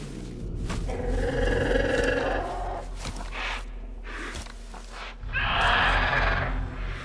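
Film creature vocals for the feathered dinosaur Pyroraptor: three calls. A long one starts about a second in, a short one comes in the middle, and the loudest, lasting about a second and a half, comes near the end.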